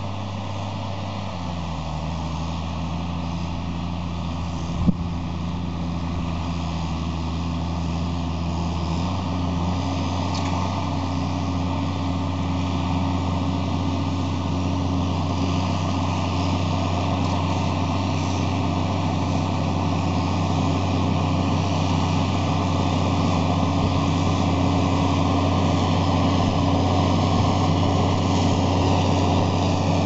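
New Holland TM155 tractor's six-cylinder diesel engine running steadily under load while pulling a five-furrow plough, growing louder as it approaches. The engine note shifts twice, once near the start and again about nine seconds in. There is a single sharp knock about five seconds in.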